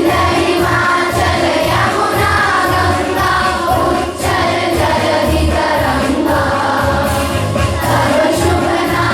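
A group of voices singing together over instrumental music with a steady beat.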